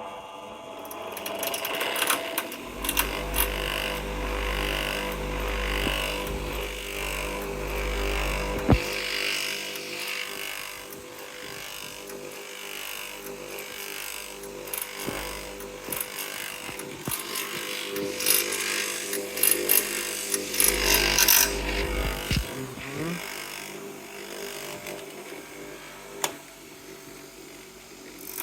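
Zubr PST-200 bench grinder running, its motor giving a steady hum with irregular clicks and rattles and a few louder stretches.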